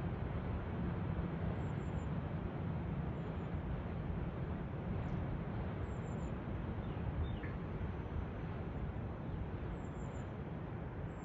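Distant rumble of a passenger train crossing a high iron truss bridge, a steady low noise that fades slightly as the train moves off. A bird chirps faintly once about seven seconds in.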